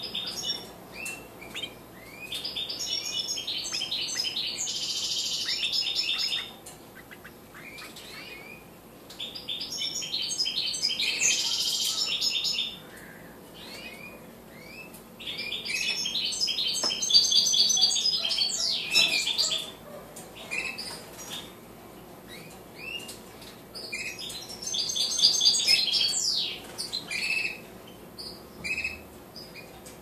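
Goldfinch-hybrid nestlings begging while a parent feeds them: four bursts of rapid, high, shrill chirping a few seconds long, with single short calls between them.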